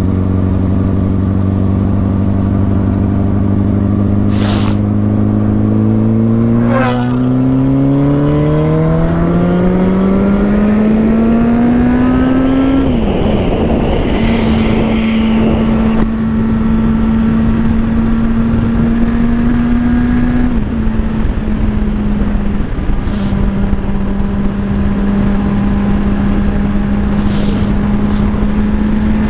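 Sport motorcycle engine heard while riding, with steady wind rush. It runs at a steady speed, then the revs climb for several seconds under acceleration. An upshift about halfway through drops them, and the engine then holds a steady cruise.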